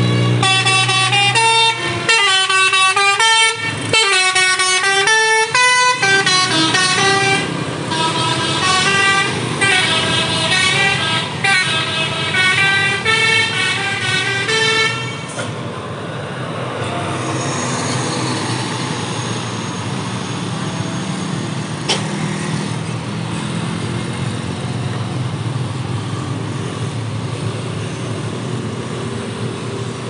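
Bus's multi-tone basuri air horn playing a melody in quick stepping notes for about fifteen seconds, then stopping, leaving engine and traffic noise as the bus passes close by.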